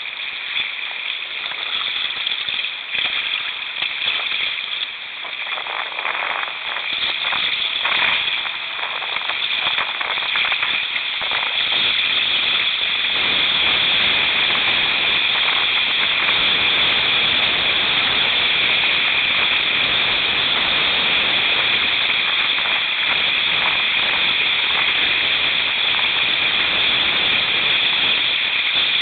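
Rushing whitewater of a rocky creek around a kayak, a steady hiss of rapids that grows louder about twelve seconds in. Scattered splashes come before that.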